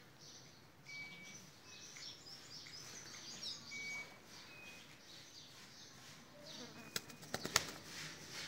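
Domestic pigeons' wings flapping, a quick run of sharp claps about seven seconds in, over small birds chirping and whistling in the background.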